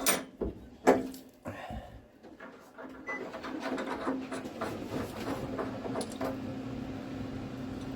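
Sharp metallic knocks and clicks of a radiator valve and tools being handled, the loudest about a second in, followed by a steady hum with fine ticking while the new thermostatic radiator valve is fitted.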